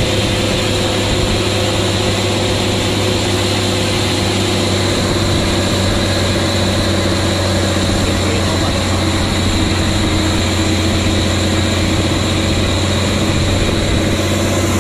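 Heavy truck engine running steadily with a strong low hum, heard from aboard the truck as it drives through floodwater.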